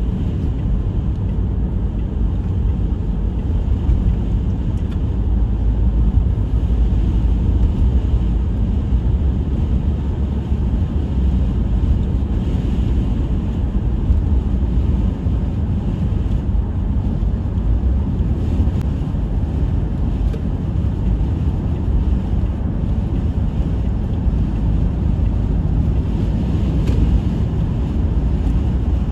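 Blizzard wind blowing hard against the microphone, a steady deep rumble that rises and falls slightly with the gusts.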